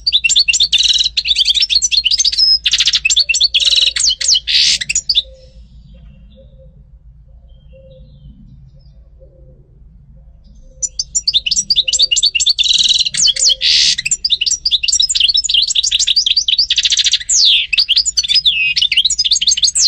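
European goldfinch singing: a fast, twittering song of rapid trills and chirps, breaking off for about five seconds in the middle before starting again.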